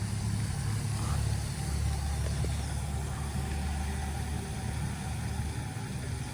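Car running with a steady low engine and road rumble.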